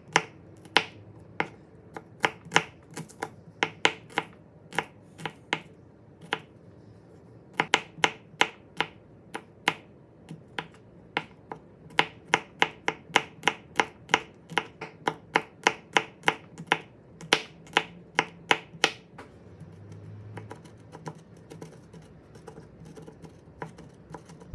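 Chef's knife chopping shallots and garlic on a thick round end-grain wooden chopping board: sharp knocks of the blade striking the wood. Spaced strokes at first, then quick runs of about three a second while mincing, thinning out to a few strokes after about 19 seconds.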